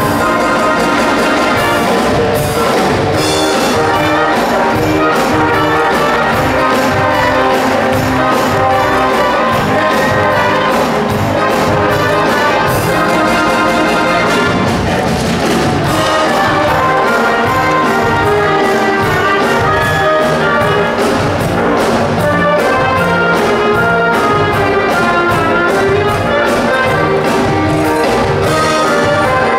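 Brass-led orchestral music with a steady beat, trumpets and trombones carrying the tune.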